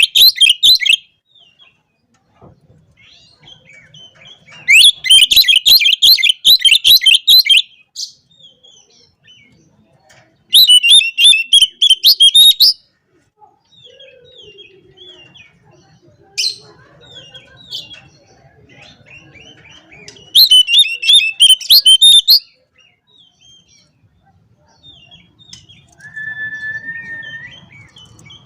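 Oriental magpie-robin singing in loud bursts of rapid, varied warbling song, four bursts of two to three seconds each with softer chirps between. Near the end comes a thin, steady whistled note.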